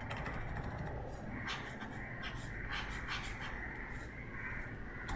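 Faint, scattered clicks and taps from computer input, made while selecting a colour and painting, over a steady low background hiss.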